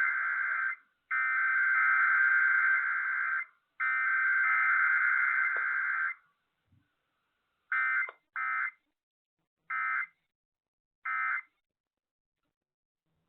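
Emergency Alert System SAME digital header: three long bursts of buzzy data tones, each a little over two seconds, separated by about a second. After a pause come four short bursts of the same data tones, as in an end-of-message code.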